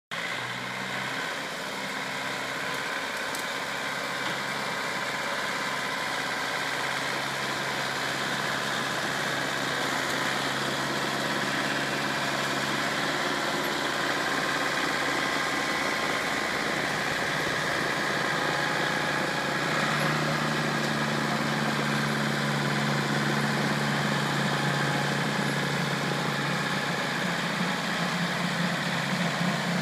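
John Deere compact tractor engine running steadily while driving a rear-mounted, PTO-driven Quickattach RP 700 series snow blower, whose spinning impeller adds a steady rushing whir as it throws snow. The engine note shifts about two-thirds of the way through.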